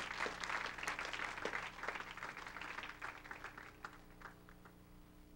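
Congregation applauding, the clapping thinning out and dying away about four and a half seconds in.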